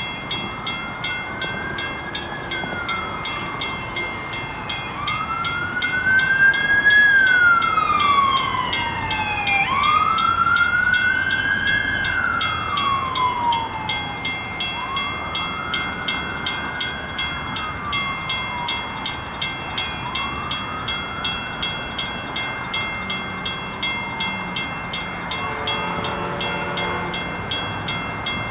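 Railroad grade-crossing bell ringing steadily about twice a second, while an emergency vehicle's siren wails, rising and falling every two to three seconds, loudest in the first half and fading away. A train horn begins faintly near the end.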